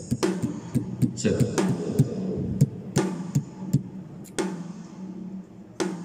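Acoustic drum kit played in a band sound check. Quick drum hits and cymbal crashes are busiest in the first three seconds. A crash comes about four and a half seconds in, then it goes sparser, over a steady low tone.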